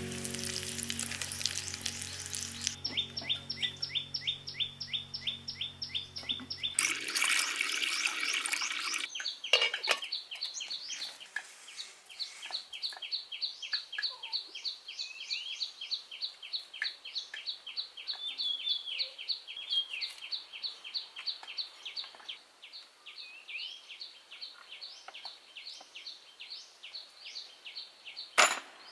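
A bird chirping in long quick-repeating series, high-pitched and steady, with a few rising notes mixed in. Early on, a short rush of running or splashing water and fading background music; a single sharp click near the end.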